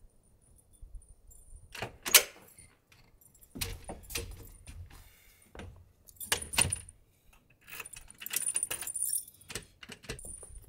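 A bunch of keys jangling, with sharp clicks and knocks from an aluminium-framed glass sliding door and its latch being handled. The loudest knock comes about two seconds in, and a longer spell of jingling comes near the end.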